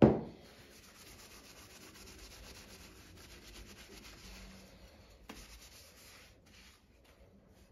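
A sharp knock at the start, then steady rubbing as a plastic sewing-machine side cover is wiped clean by hand for about six seconds, with a small click near the end of the rubbing.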